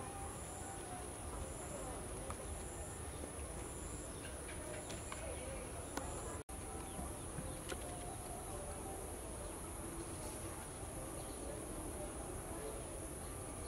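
Steady high-pitched drone of insects in the background. For the first few seconds a second insect note pulses about once a second over it.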